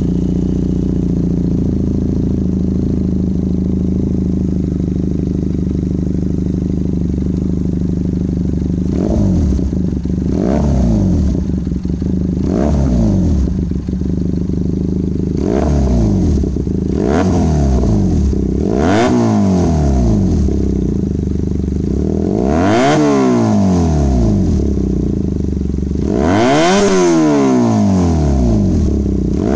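Benelli 302R's 300 cc parallel-twin engine running through a replica Akrapovic slip-on muffler: idling steadily, then from about nine seconds in blipped again and again, each rev rising and dropping back, the later revs higher.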